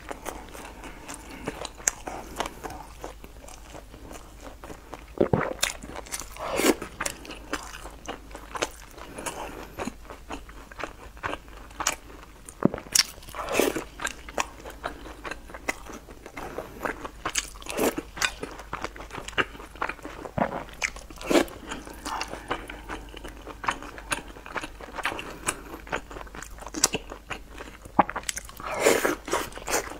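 Close-miked mouth sounds of a person eating a filled flatbread wrap and spicy stew: a steady run of chewing with crunches and small mouth clicks, and several louder bites scattered through.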